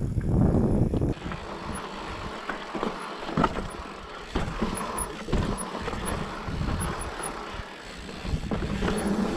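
Mountain bike rolling down a loose, rocky dirt trail, heard through a handlebar-mounted camera: steady tyre crunch over dirt and rock with frequent short rattles and knocks from the bike. Wind buffets the microphone for about the first second.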